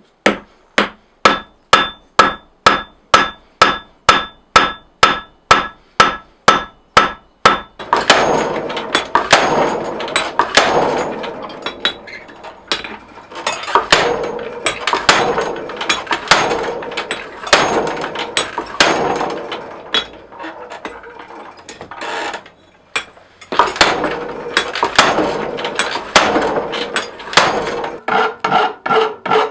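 Blacksmith's hammer striking steel on an anvil. For about eight seconds the blows come evenly, about two and a half a second, each with a short metallic ring. Then they come faster and heavier, with a brief pause a little past twenty seconds.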